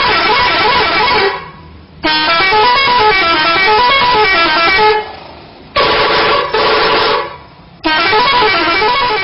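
Telolet horn, a multi-tone musical air horn, playing quick up-and-down melodic phrases in four loud blasts with short pauses between them.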